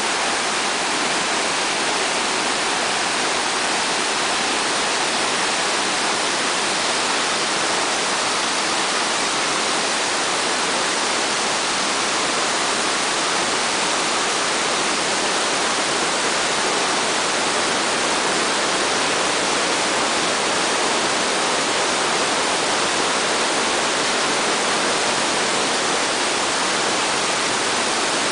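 Silty glacial meltwater stream rushing over gravel and boulders: a loud, steady rush of water that never lets up.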